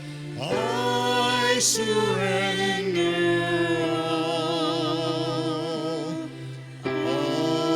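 Worship music: sustained sung notes with vibrato over a steady accompaniment, one phrase swelling in about half a second in and another starting after a short dip near the end.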